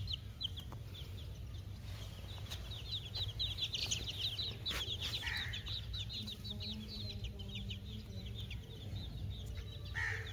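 A group of baby chicks peeping continuously: rapid, high, short cheeps that each fall in pitch, overlapping one another.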